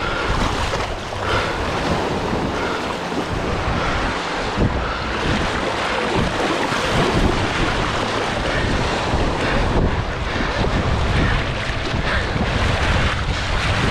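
Surf washing in around a sandbar shark as it thrashes and splashes in the shallows, held by the tail, with strong wind buffeting the microphone. A few sharper splashes come about midway.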